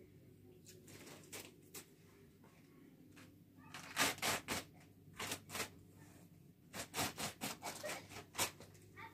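Sheets of thin baked flatbread crackling and rustling as they are lifted, folded and stacked on a metal tray. After a quiet start, the crackles come in several quick runs from about four seconds in.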